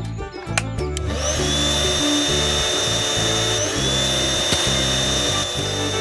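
An electric power tool spinning up about a second in and running with a steady high whine, then spinning up again a little past halfway, over background music with a steady beat.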